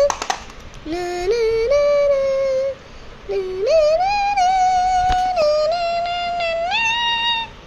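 A high voice singing a wordless tune in long held notes that step up and down in pitch, with a short pause about three seconds in.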